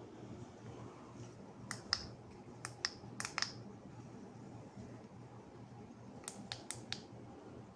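SK ceiling fan motor humming faintly and steadily without starting, the stalled-fan fault. Sharp clicks come in a cluster about two to three and a half seconds in and again about six and a half seconds in.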